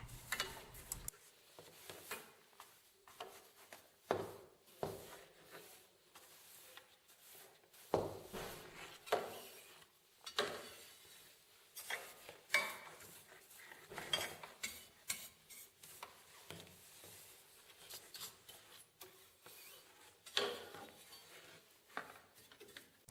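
Scattered light knocks and clatter of small MDF scraps being tidied up with a dustpan and brush, irregular and spaced by short pauses.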